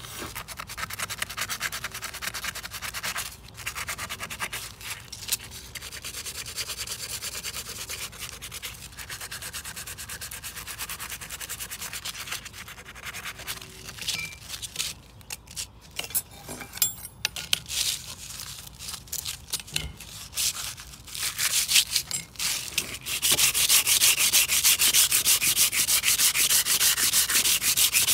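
Metal storm-door handle plate being hand-sanded with 400-grit sandpaper to strip rust and old paint: continuous scratchy rubbing strokes. There are a few brief pauses and knocks around the middle, and the rubbing turns louder and steadier for the last five seconds or so.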